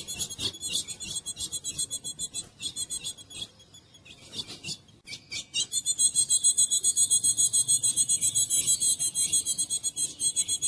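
Caged female ultramarine grosbeak (azulão) calling in a rapid string of high-pitched, raspy notes, several a second. It stops briefly about four seconds in, then runs on louder and unbroken through the second half.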